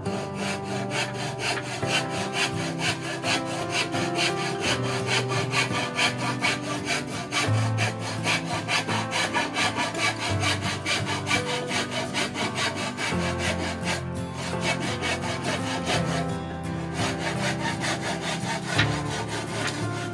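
Hand saw cutting through a 1x2 wooden board in quick, even back-and-forth strokes, about four a second, with a brief pause around two-thirds of the way through. Background music plays underneath.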